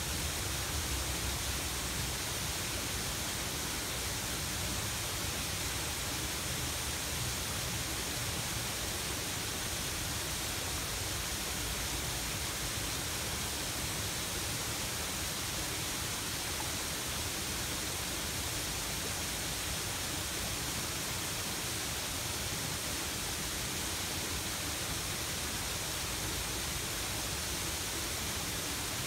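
Waterfall pouring over a rock face into a pond: a steady, even rush of water.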